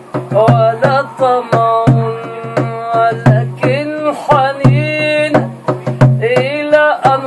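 A man singing an Arabic devotional song (inshad) in long, wavering held notes, keeping a steady rhythm by beating with his hand on a plastic water jug used as a drum, low thumps mixed with sharper taps.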